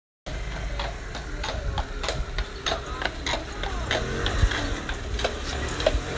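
Horse's hooves clip-clopping on a paved street at a walk, about three or four hoofbeats a second, over the low rumble of the horse-drawn carriage's wheels rolling past.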